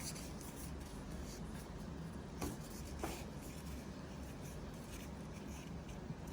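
A sheet of A4 paper being folded and creased by hand: soft rustling and rubbing, with two sharper crinkles about two and a half and three seconds in.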